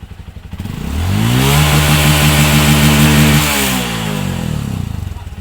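Honda CRF150's single-cylinder four-stroke engine revved from idle up to its rev limiter, held there for about two seconds at roughly 9,100 rpm, then let fall back to idle. This stock limit is where the owner says the bike coughs at high revs before an ECU remap.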